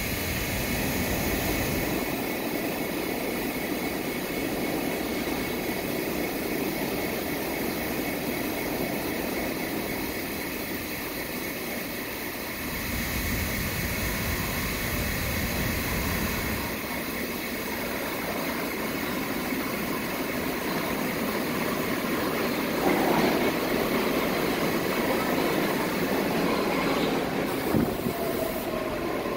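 New York City subway train rumbling up the tunnel and into the station, its noise growing louder as it nears. It ends with wheel clatter and a brief falling wheel squeal as the cars run alongside the platform.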